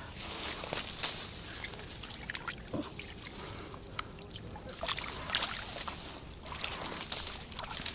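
Water splashing and trickling at the shore's edge as a freshly caught fish is put into a keep net, mixed with the crackle and rustle of dry reed stems.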